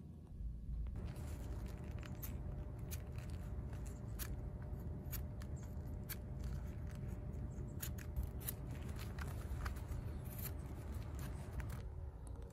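Kitchen knife blade scraping and nicking the bark of dormant fig cuttings, a rapid irregular run of short scrapes and clicks starting about a second in: wounding the bark of the cuttings before rooting them.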